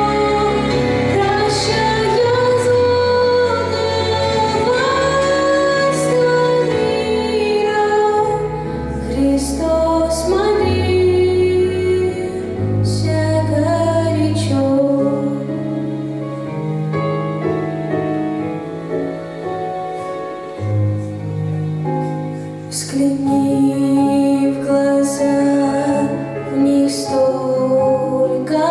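A hymn sung by female voices over instrumental accompaniment, with long held bass notes under the melody.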